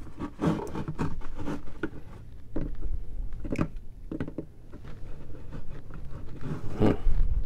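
Irregular plastic clicks and scrapes as needle-nose pliers work at the plastic filter insert inside a plastic gas can's spout, with a few low knocks from the can being handled.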